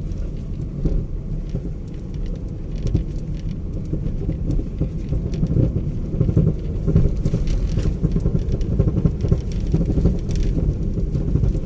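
Vehicle driving along a rough road, a steady low rumble of engine and road noise with scattered knocks and rattles.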